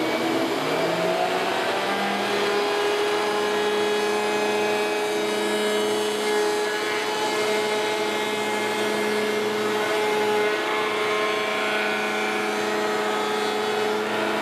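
Table-mounted router running up to speed over the first couple of seconds, then whining steadily while a rabbeting bit cuts the final depth of a groove into the inside edge of a wooden ring.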